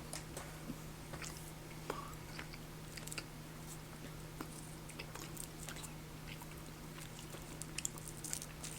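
Faint mouth sounds of a person chewing chocolate candy: scattered small wet clicks, over a steady low hum.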